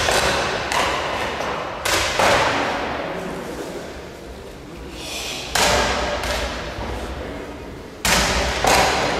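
About six sharp smacks at uneven intervals, each ringing on in a large hall: hand strikes on a bare-bodied karateka's torso as the instructor tests his Goju-ryu sanchin stance (shime).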